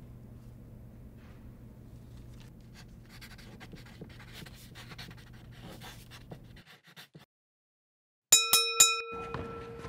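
A boxing ring bell rung in a quick run of about four sharp strikes near the end, its tone ringing on after the last strike. Before it, a steady low hum with faint rustling cuts out to silence about a second and a half earlier.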